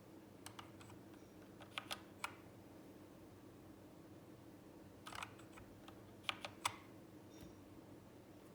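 Keystrokes on a Zet Blade Pro keyboard with optical red linear switches: scattered clicks in small groups of two to four, with pauses of a second or more between groups. A faint steady hum runs underneath.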